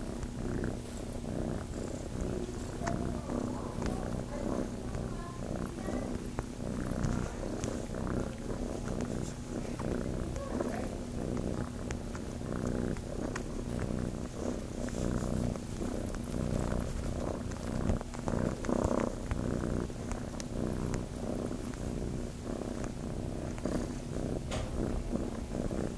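Tabby kitten purring steadily right against the microphone as it nuzzles into a shirt, seeking to nurse, with scattered small clicks and rustles.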